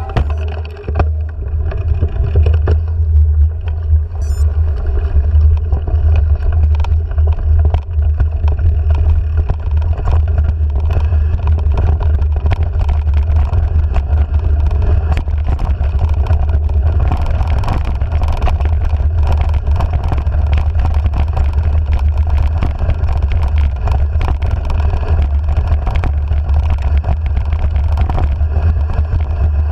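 Wind buffeting a handlebar-mounted action camera's microphone as a bike rolls down a dirt trail: a steady low rumble with tyre noise and frequent rattles and knocks from bumps in the trail, a little louder after about five seconds.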